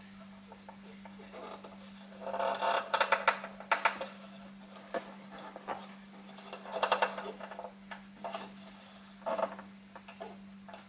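Light clinks and rattles of a metal hurricane lantern being handled, in two main bursts with a few smaller ones after, over a steady low electrical hum.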